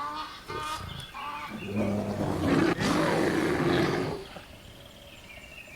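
Polar bear growling and roaring: short rough growls, then a louder drawn-out roar from about two to four seconds in, fading away near the end.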